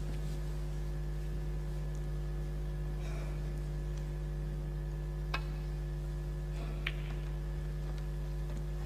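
Steady electrical hum under the snooker table sound, with two sharp clicks about five and seven seconds in: snooker balls being struck.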